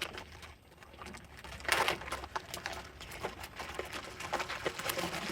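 Packaging being handled and pulled open by hand: scattered crinkles and clicks, with a louder rustle about two seconds in.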